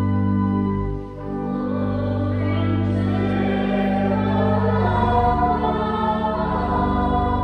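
Church organ playing held chords, dipping briefly about a second in, with voices singing along from about two and a half seconds in.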